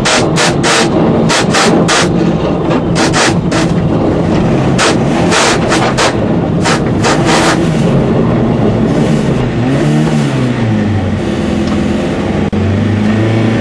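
Rally car heard from inside the cabin, its engine running hard while the car takes a rapid, irregular series of sharp bangs over the first half as it crashes over a badly rutted, snowy gravel stage. About ten seconds in the engine note falls and settles to a steady, lower running.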